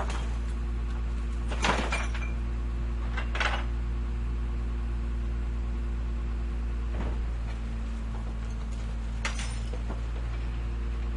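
Garbage truck's diesel engine idling steadily while a garbage container is handled, with four sharp metallic clanks and bangs, the loudest about two seconds in.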